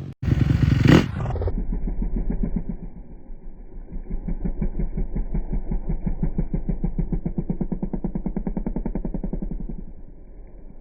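A brief loud noisy burst, then an engine running with a rapid, even pulse that grows louder and drops away near the end.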